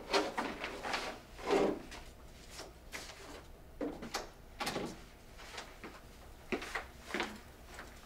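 A room door opening and being shut, then footsteps on a hard floor with the rustle of carried shopping bags: a string of separate knocks and clicks.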